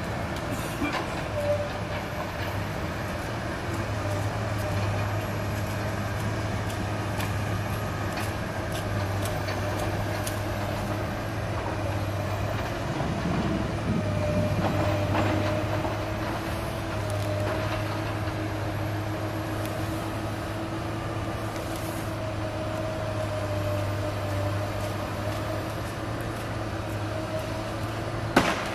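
Komatsu tracked excavator's diesel engine running with a steady drone, its pitch drifting a little as the machine works. Scattered knocks and cracks come through it, with a sharp, loud knock near the end.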